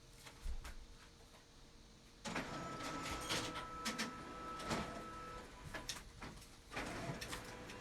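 Printer printing a page. After a quiet start, from about two seconds in the mechanism runs with a steady whine and scattered clicks. It drops off briefly near the end and then starts up again.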